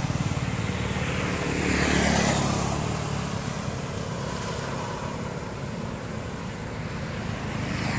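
Road traffic: a vehicle passes, swelling to its loudest about two seconds in and fading away, leaving a steady low rumble; another vehicle approaches near the end.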